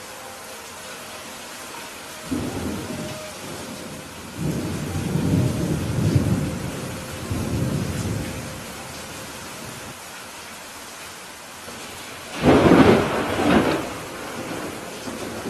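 Steady rain with rolling thunder rumbling from about two seconds in, then a louder, sharper clap of thunder near the end.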